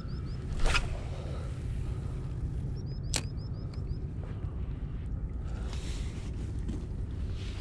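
Wind rumbling on the microphone, with two sharp clicks, one about a second in and one near the middle. Just after the second click comes a quick run of about a dozen short high chirps lasting about a second.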